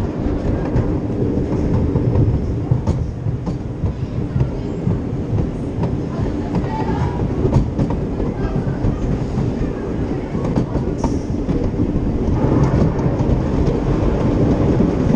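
Great Coasters International wooden roller coaster train running on its wooden track, the wheels rumbling and clattering steadily beneath the rider, with scattered clicks and knocks, getting a little louder near the end.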